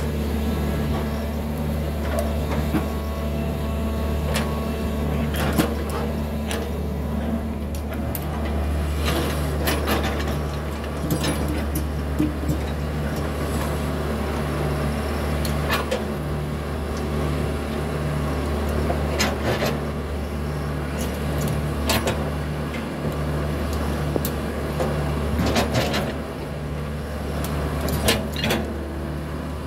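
Hitachi 110 hydraulic excavator's diesel engine running steadily under load as the machine digs and swings, with a low pulse about once a second. Scattered sharp knocks and clanks from the bucket and linkage working the soil.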